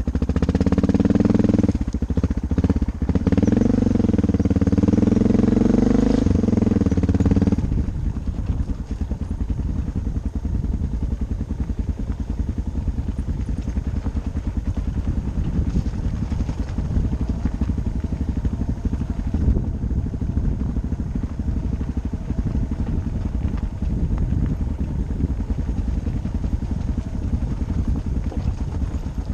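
Motorcycle engine revving hard, its pitch rising and falling, for the first seven seconds or so. It then drops back to a steady, lower, pulsing run for the rest of the time.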